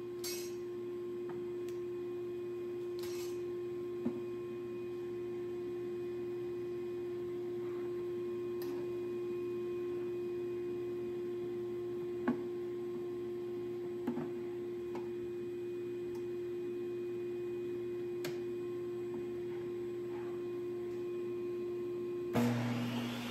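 A steady low hum with a few light knocks and clicks. Near the end the DeWalt DW7480 jobsite table saw switches on with a sudden loud start and a rising whine as its motor spins up the dado stack.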